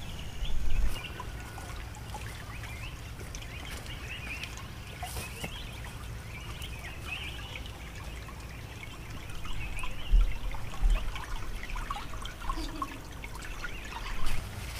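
Countryside ambience: scattered small bird chirps over a steady low rumble, with louder low rumbles about a second in and again around ten to eleven seconds in.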